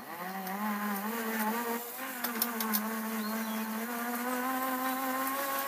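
A small electric motor running with a steady buzzing whine, its pitch creeping slowly upward, while it is held pressed against material to burn through it by friction.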